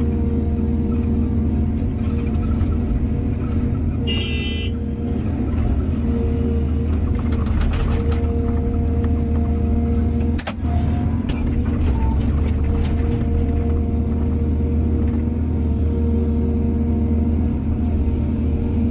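Heavy diesel engine of an excavator or truck running steadily with a low rumble. A short, high-pitched tone about four seconds in, and a few knocks and clatters near the middle.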